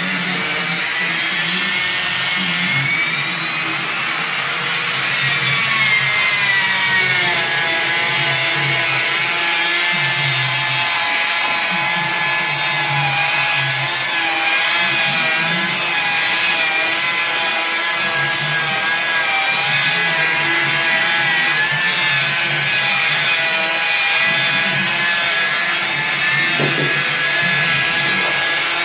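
Handheld electric polisher with a foam pad running steadily, buffing polish into a car's painted wing after dent repair. Its whine climbs in pitch a few seconds in, then falls back and holds steady.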